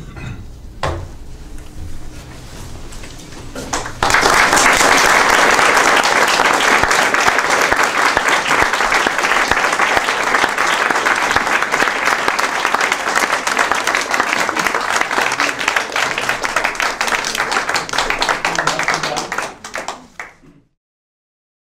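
Audience applauding at the end of a lecture. The dense clapping starts suddenly about four seconds in, stays loud and even, then thins out and cuts off near the end.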